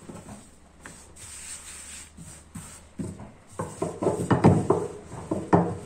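Wooden rolling pin rolling floured dough back and forth on a silicone mat, a rubbing sound. It is soft at first and gets louder with repeated strokes from about halfway in.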